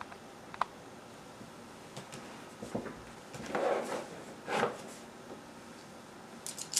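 Cardboard product box being handled on a wooden desk: a few light taps, then two brief scuffs as it is lifted and turned over. Near the end there is a sharp scratching as a pen tip is pushed into the seal sticker.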